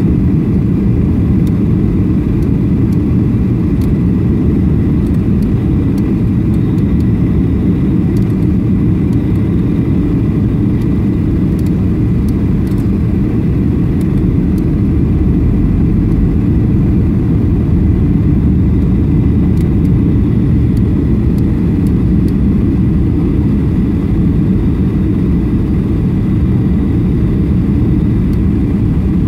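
Steady cabin noise inside a jet airliner on approach: an even rumble of engines and airflow, heaviest in the low end, with a faint steady high tone above it.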